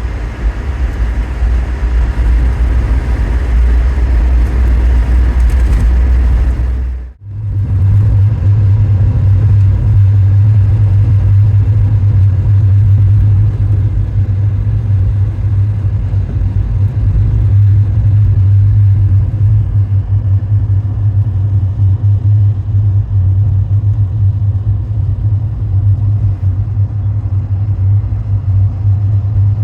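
Car driving on the road: a steady low rumble of engine and tyres. It drops out briefly about seven seconds in, then carries on with a slightly higher hum.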